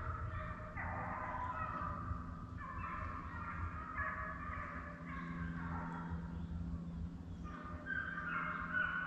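A pack of deer hounds baying in chase, several dogs crying over one another in repeated, overlapping calls.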